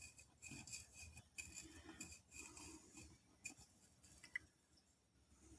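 Near silence with faint, irregular scratching and light ticks.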